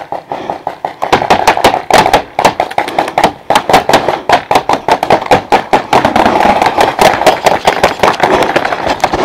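Paintball pistols firing rapidly: many sharp pops in quick, uneven succession, starting in earnest about a second in.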